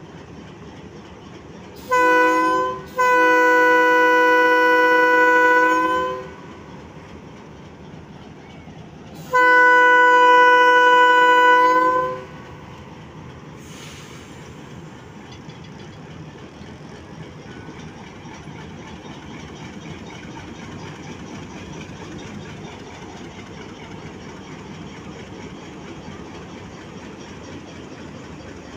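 Horn of an HBU-20 diesel locomotive sounding close by: a short toot, then a long blast of about three seconds, and another blast of about three seconds a few seconds later. Between and after the blasts the locomotive's diesel engine runs steadily.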